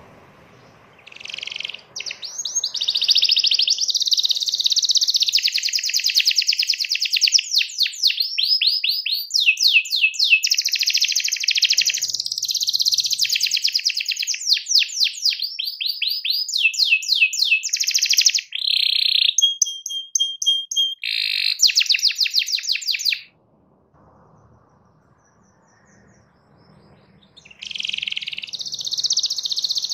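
Domestic canary singing a long song of fast trills and rolls, runs of rapidly repeated notes that change speed, with one short held whistle partway through. It stops for about four seconds near the end, then starts trilling again.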